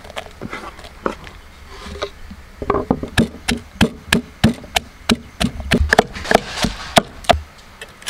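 Stone pestle pounding ginger and garlic in a stone mortar. Scattered light knocks come first, then about two and a half seconds in a quick, steady run of strikes at about three to four a second, which stops shortly before the end.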